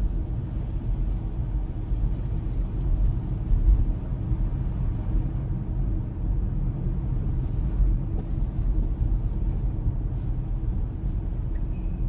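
Steady low road rumble of tyres on a snow-covered road, heard from inside the cabin of a Tesla Model Y electric car cruising at about 35 mph.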